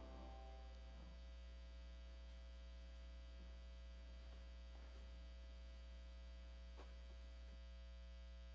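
Near silence under a steady electrical mains hum. The last piano notes die away in the first second, and a few faint knocks follow.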